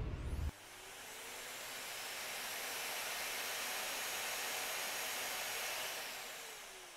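A deep low sound cuts off abruptly half a second in. A rushing noise then swells slowly, holds for a few seconds and fades away, with faint tones gliding up as it builds and down as it dies.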